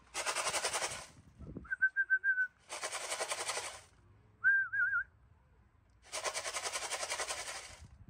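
A person whistling to call racing pigeons down to the loft: two short warbling whistles between three bursts of rapid rattling, each about a second long.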